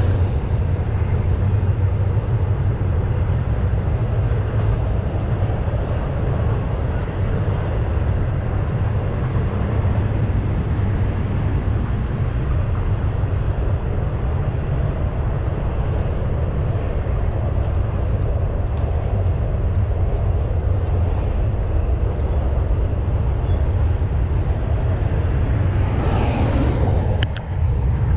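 Steady low outdoor rumble, even throughout, with a brief louder noise near the end.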